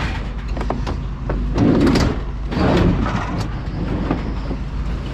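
A refrigerator being shoved and slid into a tightly packed load of scrap appliances: scraping twice and a run of knocks, over a steady low hum.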